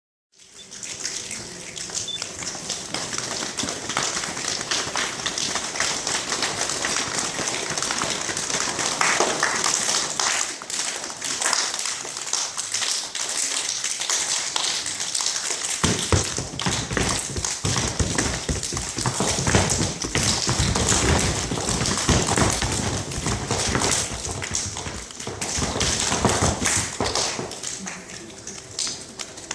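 A choir making sound effects with their hands and bodies: a dense patter of many taps and snaps over a hiss, like rain. About sixteen seconds in, a lower thudding layer joins and the sound grows fuller.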